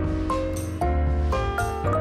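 Background music: a melody of short notes over a bass line and a steady beat.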